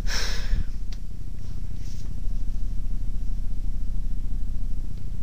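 A short breathy sniff right at the start, over a steady low rumble with a rapid flutter.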